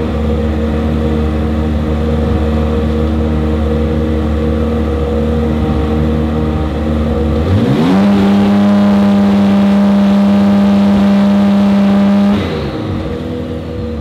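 BMW GT3 race car's twin-turbo engine warming up. It idles steadily, then about halfway through rises smoothly to a higher held rpm for around five seconds before dropping back to idle near the end.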